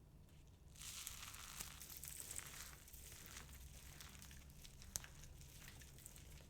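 Dry soap balls being crushed and crumbled close to the microphone: a dense crackling and crinkling that starts about a second in, with many small snaps and one sharp snap about two-thirds of the way through.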